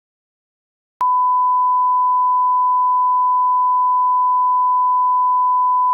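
A steady 1 kHz reference tone, a single pure beep held unchanged, starting abruptly about a second in after silence. It is the line-up tone that goes with SMPTE colour bars, used to set audio levels.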